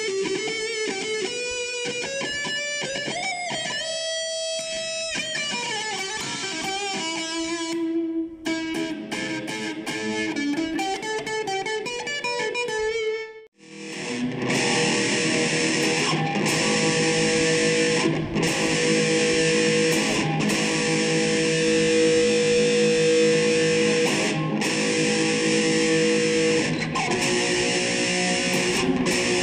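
Dean Razorback electric guitar played through an amp: quick riffs and lead runs, then, after a sudden break about halfway, denser playing with one high note held again and again. This is the guitar before its restring and reintonation, played to find its defects; something feels wrong when riffing.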